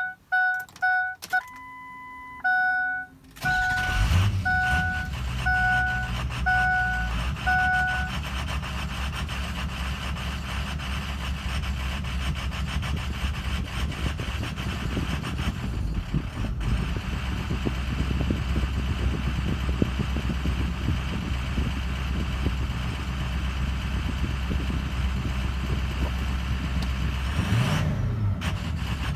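Ford Excursion's 6.0 Power Stroke V8 diesel started after a few dashboard chimes, then idling. This is the intermittent rough idle the owner is showing. A chime keeps beeping about once every three-quarters of a second over the first few seconds of running, and there is a brief rise and fall in engine pitch near the end.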